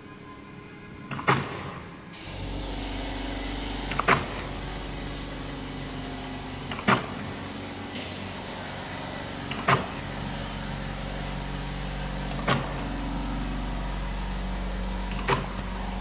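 Food encrusting machine forming kibbeh: its motor starts a steady low hum about two seconds in, and a sharp clack comes about every three seconds, six times, as the forming head cycles.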